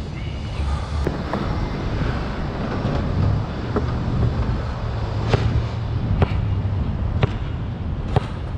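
Nike True Grip basketball hitting an outdoor court: about seven sharp knocks at irregular spacing, over a steady low rumble of traffic.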